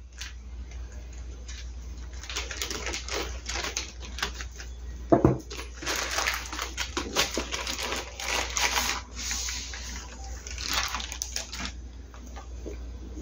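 Plastic courier mailer bag being snipped with scissors, then crinkling and rustling in a long run of irregular crackles as it is pulled open and the cardboard box inside is slid out. A single knock about five seconds in.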